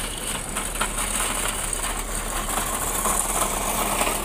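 Diesel engine of a Mercedes-Benz OH 1626 coach running steadily as the bus moves slowly off.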